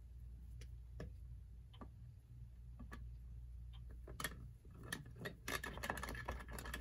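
Screwdriver backing small screws out of a clock case: faint, irregular light clicks and ticks of metal and tool, a few at a time at first and busier near the end, over a low steady hum.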